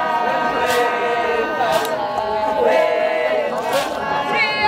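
Group of voices singing a Zulu ceremonial song together, unaccompanied, the parts held and overlapping, with a sharp percussive hit every second or two.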